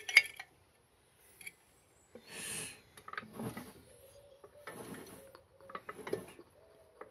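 Wico magneto's impulse coupling on a Sturmey-Archer engine snapping with one sharp, loud click just after the start as the engine is turned over by hand, firing a spark at the test plug. That click shows the impulse coupling is working again after the magneto rebuild. Softer knocks and scuffs follow over the next few seconds.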